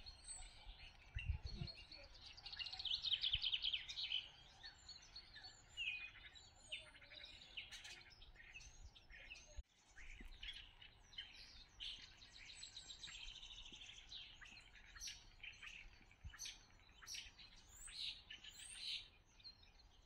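Spring birdsong: several songbirds singing and chirping at once, their calls and trills overlapping throughout. The sound drops out briefly about halfway through.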